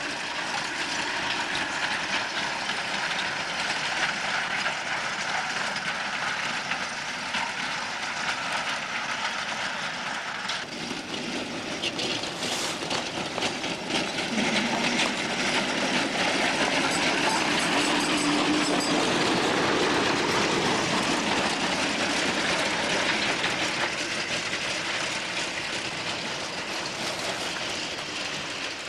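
Homemade 18-inch gauge battery-electric trolley car running along its track, its wheels clattering on the rails. The sound grows louder partway through and fades near the end as the car moves off.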